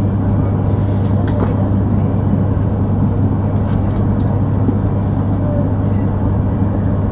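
Yamagata Shinkansen train running at speed, heard from inside the passenger car: a steady low hum and rumble of wheels on rail with even noise over it.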